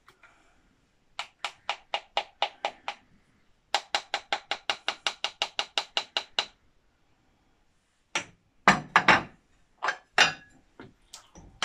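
A spoon tapped against a small Pyrex glass dish to shake off thick, sticky potato-and-cheese puree. About seven taps at roughly four a second come first, then a faster run of about twenty. A few louder knocks and scrapes of the spoon in the stainless steel pot follow near the end.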